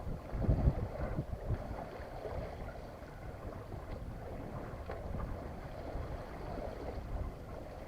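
Wind buffeting the microphone aboard a small sailboat under sail, with the gusts strongest in the first second, over a steady rush of water along the hull.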